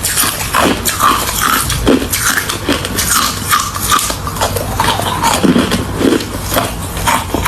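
Close-up crunching of hard crushed ice being bitten and chewed in the mouth, a rapid run of crisp cracking crunches.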